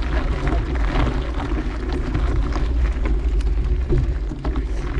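Wind buffeting the microphone as a steady low rumble while riding, with scattered clicks and rattles from the bike rolling over a dirt trail.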